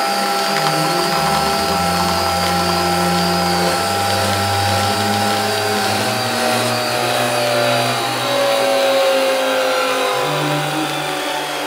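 Krups Nespresso Vertuo capsule coffee machine brewing, its motor spinning the capsule with a loud steady whir. Several whining tones within it slowly drift down in pitch over a shifting low hum.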